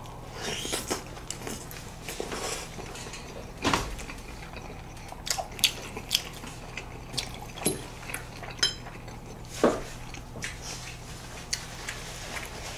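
Close-up eating: forks and chopsticks clicking irregularly against plates and bowls, with wet chewing and slurping of chewy noodles and breaded pork cutlet.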